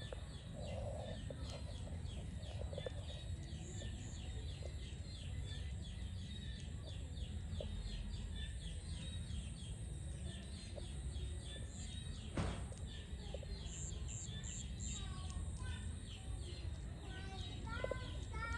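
Birds calling over a steady low rumble: a faint high chirp repeats about three times a second, a single sharp click comes about twelve seconds in, and a run of short falling calls like clucking comes near the end.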